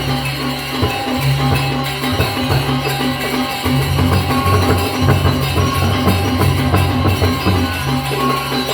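Music with percussion and a steady beat over sustained low bass notes.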